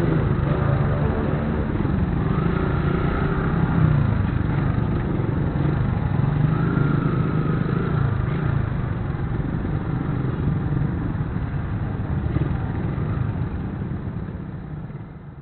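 Motorcycle engines running in slow city traffic: a steady mix of engine hum and road noise that fades out near the end.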